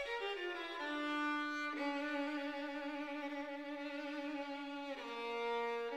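Background music: a bowed violin playing slow, long held notes, moving to a new note about two seconds in and again near the end.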